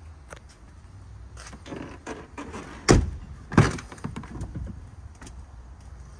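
Doors of a Ford F-550 crew-cab pickup being worked: handling noise, then two sharp clunks a little under a second apart about halfway through, followed by a few lighter knocks as the rear door is opened.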